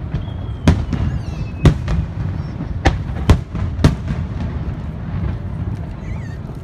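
Aerial firework shells bursting in sharp booms, five loud ones about half a second to a second apart, over a continuous low rumble.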